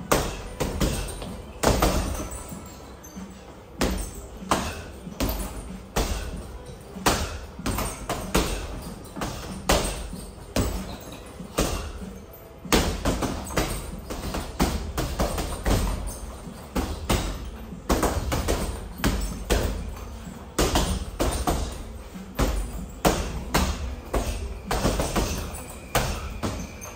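Boxing gloves hitting punching bags: a steady run of sharp thuds and slaps, often in quick doubles and short flurries, about one or two a second.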